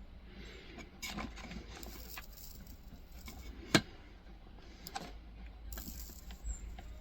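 Light rattling and scattered small clicks from small hard objects being handled, with one sharp click a little before the four-second mark, over a faint low hum.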